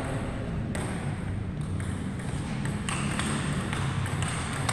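Table tennis rally: the ball clicks sharply off the paddles and the table about every half second to a second, over a low steady hum.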